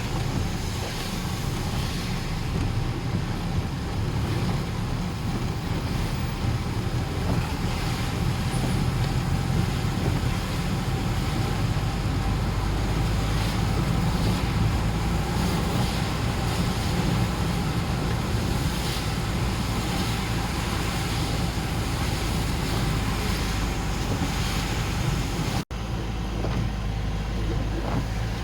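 Steady low rumble and hiss of a moving vehicle, with wind on the microphone. The sound drops out for an instant about 26 seconds in, then carries on much the same.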